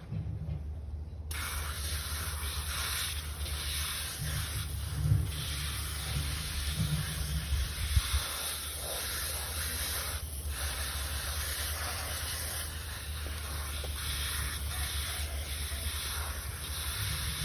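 Garden hose spray nozzle spraying water onto a dog's coat: a steady hiss that starts abruptly about a second in.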